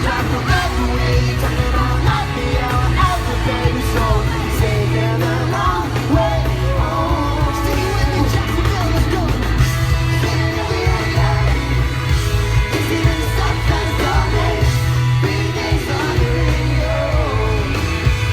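A rock band playing live and loud with heavy, steady bass, with singing and yelling over it.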